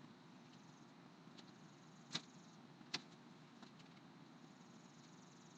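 Near silence: faint room hum with two light, sharp clicks a little under a second apart, about two seconds in, and a fainter tick shortly after.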